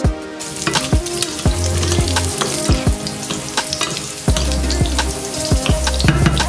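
Carrot sticks sizzling as they fry in hot oil in a nonstick pan, starting about half a second in. The sizzle is stirred with a wooden spatula and a metal spoon, which give repeated sharp clicks against the pan.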